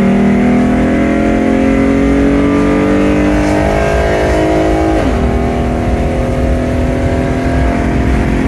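Toyota 2GR 3.5-litre V6, swapped into a BMW E46, accelerating hard at full throttle, heard from inside the cabin. The revs climb steadily, dropping sharply at an automatic upshift right at the start and again about five seconds in, then climbing once more.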